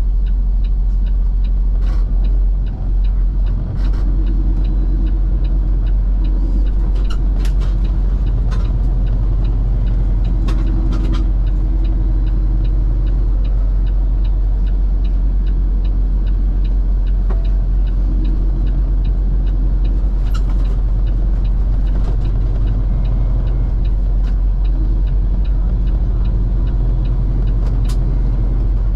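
Semi-truck's diesel engine running under way, with road noise: a steady, loud low rumble and engine hum. A few light clicks and knocks come through it now and then.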